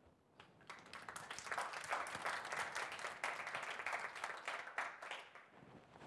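Audience applauding, many hands clapping together; it builds up about half a second in and fades out near the end.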